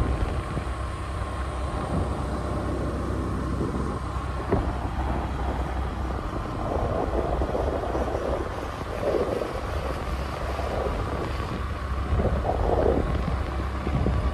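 Wind rushing and buffeting over the microphone of a moving scooter, with a low rumble and gusty swells. A faint steady whine from the scooter runs underneath and rises slightly near the end.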